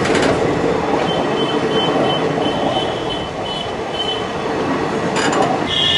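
Passenger train coaches rolling past close by, their steel wheels running on the rails with a steady rumble. A sharp clack of wheels over a rail joint comes at the start and again about five seconds in, with a faint high-pitched wheel squeal in between and near the end.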